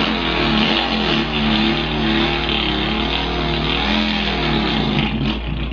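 A man imitating a Volkswagen engine with his voice: one continuous buzzy engine drone whose pitch wavers up and down.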